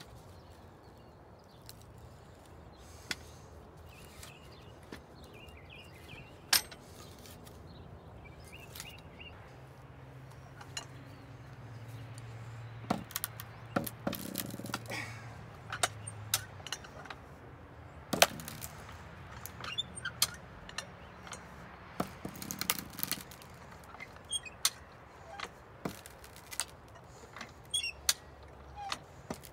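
A hi-lift farm jack being worked to drive a log onto a scrap-metal splitting wedge: irregular sharp clicks and knocks from the jack, with the wet red oak cracking and splitting as it is forced apart. The clicks and cracks come thicker in the second half.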